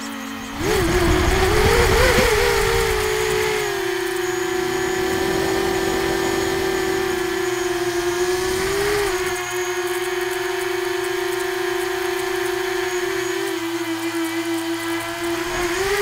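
The RCExplorer Tri-Mini tricopter's F80 1900KV motors and three-blade 6-inch propellers whining in flight. The pitch drops for a moment, then climbs and wavers as the throttle comes up about a second in, and settles into a steady tone. A rough low noise runs along with it for the first few seconds, and the pitch rises again right at the end.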